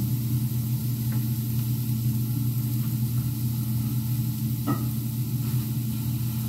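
Chicken sizzling as it fries in a pan, over a steady low hum, with a couple of light knocks from handling things on the counter.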